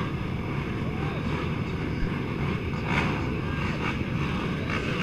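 Racing ATV engines running at the start line in the distance, a steady rumble mixed with wind buffeting the microphone.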